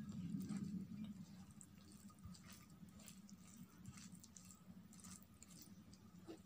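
Faint wet squishing and scattered soft clicks of fingers mixing rice with curry on a plate, over a low steady hum.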